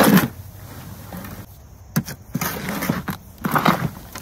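Shovel scraping through and tossing a gritty soil mix of gravel, pine fines, perlite, organic material and native soil in a wheelbarrow: a few separate crunching scoops, with a sharp clink about two seconds in.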